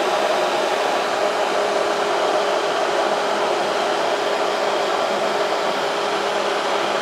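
Immersion blender running steadily, a constant whir with a steady hum, its blade churning soy milk as oil is slowly poured in, emulsifying it into a thickening vegan mayonnaise.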